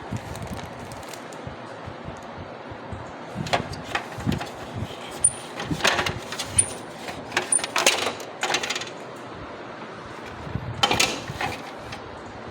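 HP LaserJet 3005/3035 printer's mechanism making an irregular metallic clicking and rattling noise, the noise fault the printer is known for, in bursts over a steady background hum. Three short high beeps sound in the middle of the clatter.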